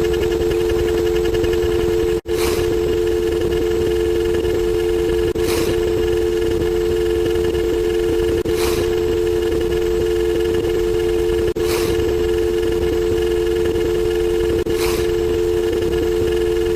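Telephone dial tone held steady, two tones sounding together, with a short hiss breaking in about every three seconds.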